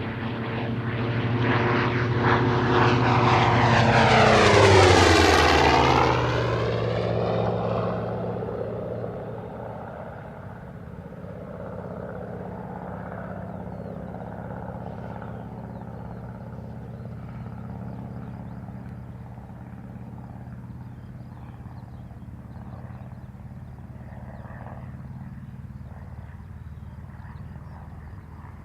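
Piston-engined warbird fighter making a fast low pass. The propeller and engine sound swells to its loudest about five seconds in, drops sharply in pitch as the aircraft passes, then fades to a steady distant drone.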